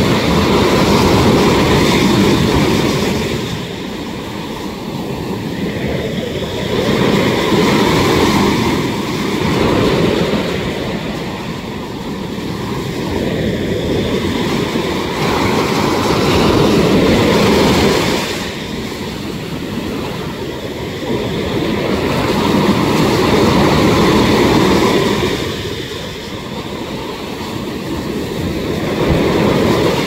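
Sea surf breaking against rocks, the broken water pouring back down off them: a steady rushing noise that swells and eases every several seconds.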